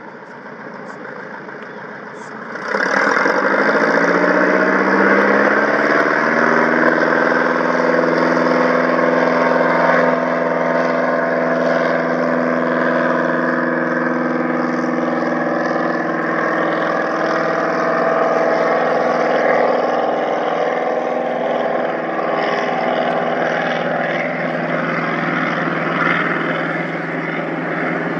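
Light single-engine floatplane's piston engine and propeller at low power, then opened up to full power for a takeoff run on water. About three seconds in the sound jumps sharply louder and the engine note rises over a few seconds, then runs steady and loud, easing slightly near the end as the plane lifts off.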